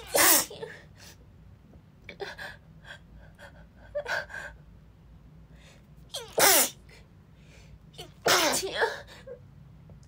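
A woman sneezing again and again, about five sneezes roughly two seconds apart, barely catching her breath between them; the loudest come at the start, around six and a half seconds in and just past eight seconds. She is sick with a cold.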